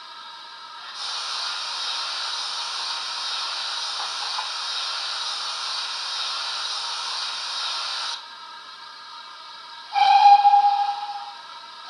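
Oxford Rail Dean Goods OO-gauge model locomotive's LokSound sound decoder playing through a small replacement bass speaker: a steady steam hiss for about seven seconds that cuts off suddenly, then a steam whistle blast near the end, the loudest sound, fading over about a second and a half.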